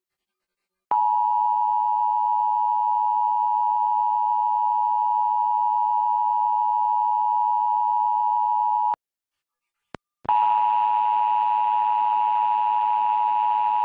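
Emergency Alert System attention signal: a steady two-tone alarm of 853 and 960 Hz sounds for about eight seconds and breaks off. After a short click it starts again about a second later, now with a hiss under it.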